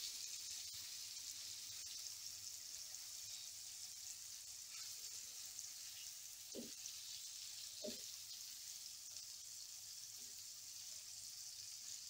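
Whole red snapper coated in spice masala shallow-frying in a little oil on a low flame: a steady, faint, high sizzle. Two brief soft knocks come about six and a half and eight seconds in.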